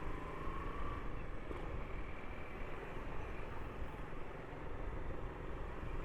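Motorcycle running steadily in city traffic: a low, even engine rumble with road noise, and a faint whine during the first second.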